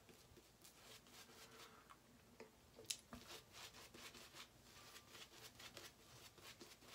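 Faint, quick swishing strokes of a Craving Shaving Chop Shop shaving brush working soap lather over the face, several strokes a second, with one sharper click about three seconds in.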